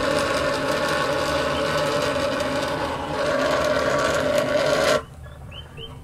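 Steam wand of a vintage Signor Cappuccino espresso machine steaming milk in a stainless steel pitcher: a loud, steady hiss that cuts off suddenly about five seconds in when the steam is shut off.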